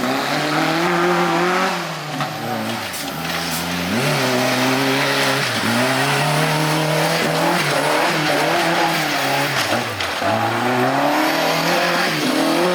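Off-road 4x4 vehicle's engine revving hard, its pitch climbing and dropping over and over every two to three seconds.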